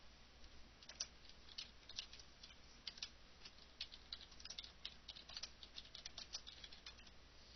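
Typing on a computer keyboard: a run of quick, irregular keystrokes, faint, starting about half a second in and stopping shortly before the end.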